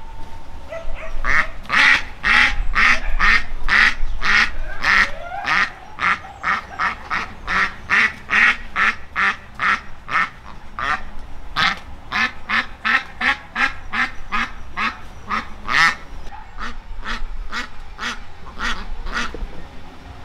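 Domestic ducks quacking: a long run of short, harsh quacks, about two or three a second.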